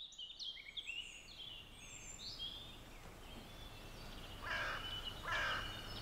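Birdsong fading up from silence: quick high chirps and trills from small songbirds for the first couple of seconds, then two harsh cawing calls near the end.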